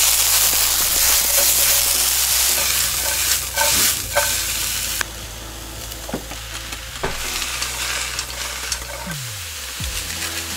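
Sliced onions sizzling and being stirred in a hot frying pan, with chopped mushrooms tipped in partway through. The sizzle is loudest for about the first five seconds and then quieter, with a few sharp knocks against the pan.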